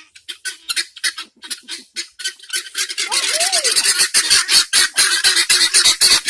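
A flock of aviary birds chattering and chirping in quick short calls, sparse at first and then thickening into a loud, dense din about two and a half seconds in.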